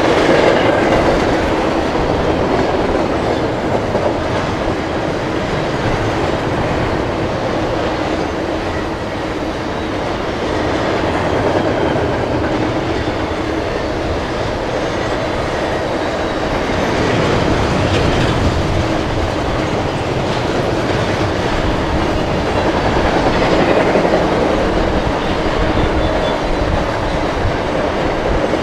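Double-stack intermodal freight cars rolling past at trackside: the steady, unbroken sound of steel wheels running on the rails.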